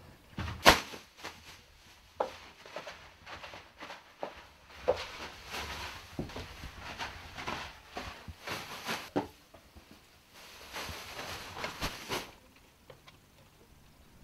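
A sharp knock about a second in, then irregular clatters and stretches of rustling, handling noise in a small room.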